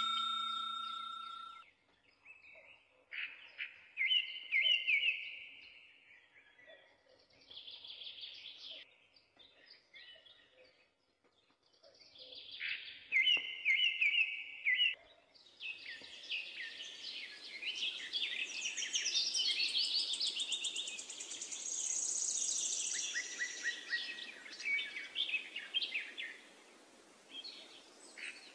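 Birds chirping in short repeated trilled phrases with pauses between them, thickening into a dense chorus with insect-like buzzing from about halfway through. At the very start a metallic ding rings and fades.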